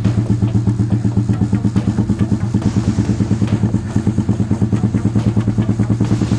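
1959 Royal Enfield Bullet 350's single-cylinder four-stroke engine running steadily at idle, with a fast, even firing pulse.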